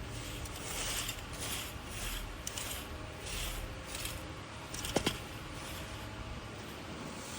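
Rake scraping through dry leaves in a run of quick strokes, about two a second, then a single sharp knock about five seconds in.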